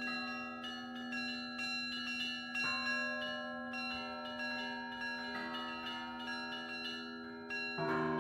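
Russian Orthodox church bells rung by hand: higher bells struck in a quick repeating pattern, about two to three strokes a second, over the steady hum of a larger bell. A deeper bell is struck near the end.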